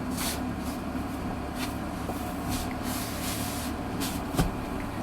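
Handling noises: a few short rustles and soft knocks, with a longer rustling hiss about three seconds in and a light thump near the end, over a steady low hum.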